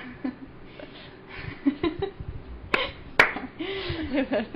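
Two sharp clicks about half a second apart, then women laughing near the end.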